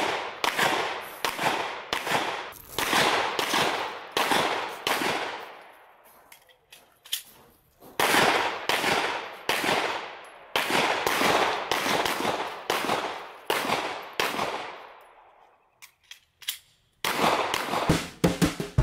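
Pistol fired in fast strings, several sharp shots a second, each with a short ringing echo. There are two brief lulls, and a few scattered shots near the end.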